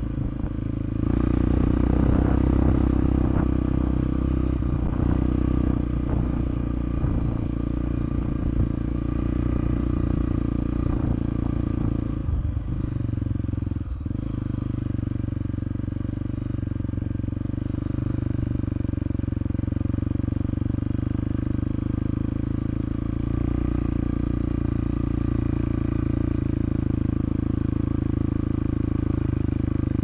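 Enduro motorcycle engine running steadily while riding a rocky, sandy trail, its note dipping briefly about halfway through before picking up again.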